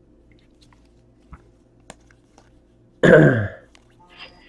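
Faint clicks and rustles of trading cards being handled and sorted. About three seconds in, a man makes a loud, short vocal noise that falls in pitch, a throat-clear or grunt rather than words.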